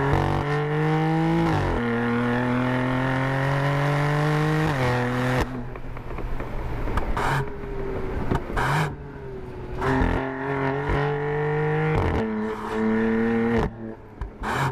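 AC Schnitzer ACS4's twin-turbo straight-six, heard close at its modified quad-tip exhaust, accelerating hard: revs climb and drop with an upshift about two seconds in, climb again until about five seconds in, then fall off the throttle with a couple of sharp cracks. About ten seconds in it pulls hard again through two quick upshifts near the end.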